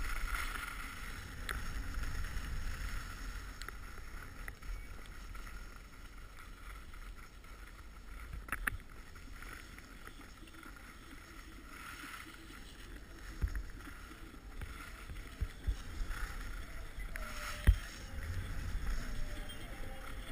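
Wind rumbling on an action camera's microphone, with a few sharp knocks. Near the end, skis scrape over snow as the skier descends.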